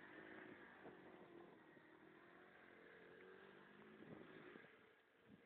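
Faint engine of a Kymco running, its pitch wavering slightly, over a low hiss, and fading near the end.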